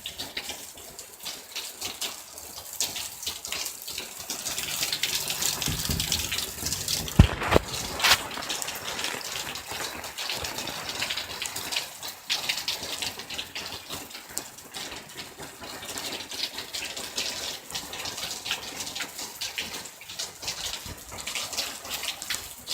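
Heavy rain pouring and splashing in a dense, steady hiss of drops. Two sharp knocks come about seven and eight seconds in.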